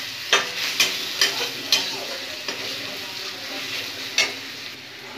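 Chopped onion, garlic and dried red chillies sizzling in oil in a metal kadai, with a spatula scraping and knocking against the pan as they are stirred: a run of sharp knocks in the first two seconds and one more about four seconds in.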